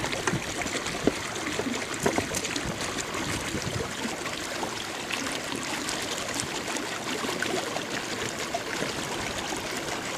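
Water lapping and trickling against the side of a small boat, a steady rippling hiss, with a few light knocks in the first two seconds.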